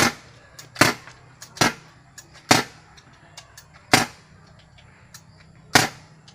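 A gun fired one shot at a time on a shooting range: six sharp shots, each with a brief tail, spaced unevenly about a second apart. Fainter clicks come between the shots.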